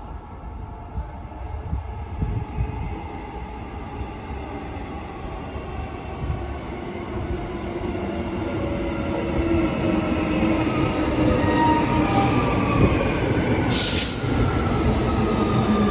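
Transperth B-series electric multiple unit pulling into a station platform, growing steadily louder as it comes close. Its electric traction motors whine in tones that fall as it slows, with a short hiss near the end.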